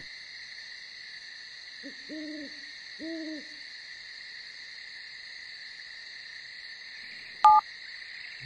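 Two owl hoots, about a second apart, over a steady high drone of night insects. Near the end, a short, loud two-tone electronic beep.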